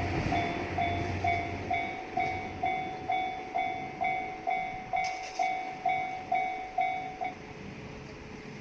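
Japanese railway level crossing warning bell, the "kan-kan" alarm, ringing about twice a second and stopping about seven seconds in. A passing train's rumble fades under it at the start.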